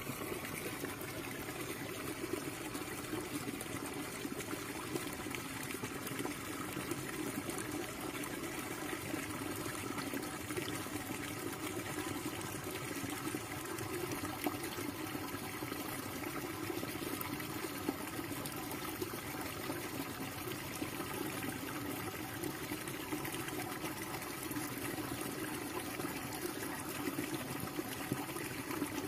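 Steady trickling, running water without a break.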